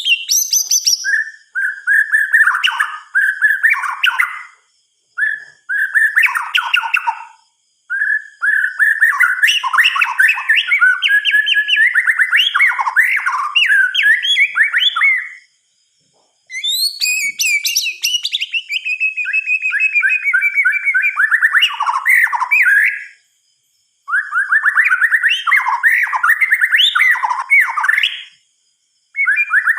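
White-rumped shama singing: long, varied runs of loud, rapidly changing whistled notes, broken by several short pauses of about a second between phrases.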